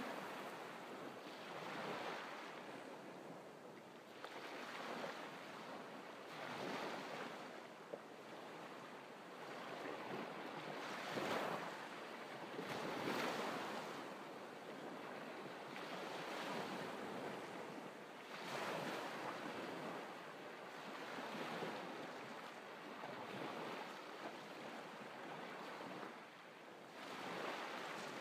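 Small waves breaking and washing up a sand-and-pebble beach, the surf swelling and falling every two to three seconds.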